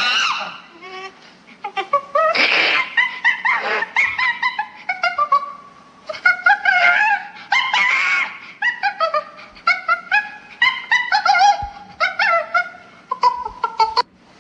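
Monkey sounds: a rapid run of short, high, gliding calls in quick bursts with brief pauses.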